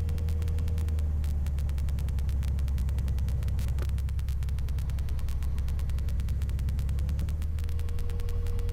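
Single-engine Cessna's piston engine and propeller running at low taxi power, a steady drone heard inside the cabin.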